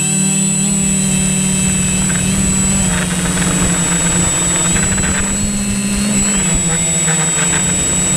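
Quadcopter drone's propellers and motors humming steadily in flight, a high whine over a buzzing drone that shifts slightly in pitch, with a low rumble of wind noise on the microphone.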